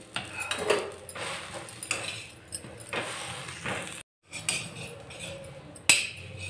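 Steel spatula scraping and tapping on an iron tawa as a slice of bread toasts in ghee: irregular metal scrapes and clicks, with one sharp click near the end.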